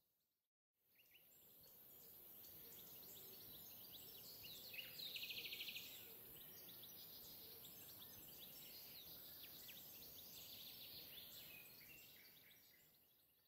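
Faint songbird chirping over a soft background hiss, with a fast high trill about five seconds in; it fades in after about a second and fades out near the end.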